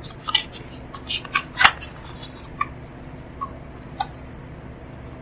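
Packaging and paper inserts being handled: a quick run of crinkles and sharp clicks, then a few scattered ticks.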